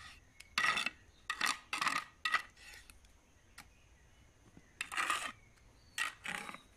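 Metal trowel scraping and clinking against a metal brick mold packed with wet sheep-manure mix, about seven short strokes in two groups with a pause in the middle.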